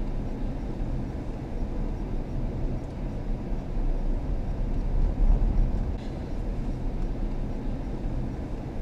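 Vehicle driving along an unpaved dirt road: a steady low rumble of tyres and engine, swelling briefly about five seconds in.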